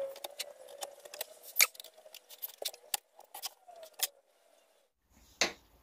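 Irregular light metallic clicks and taps of a steel rule and a metal speed square being handled and set down on a plywood sheet while lines are pencilled in, over a faint wavering hum. The tapping stops about four seconds in, with one more knock near the end.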